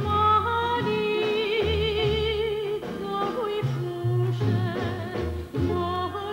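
Female lyric soprano singing with vibrato over an instrumental backing with a bass line.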